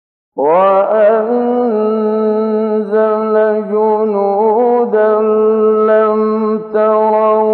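A male reciter chanting the Quran in the melodic tajweed style, holding long ornamented notes, from an old 1968 recording that is cut off above the high range. The voice comes in about half a second in and breaks briefly near the end.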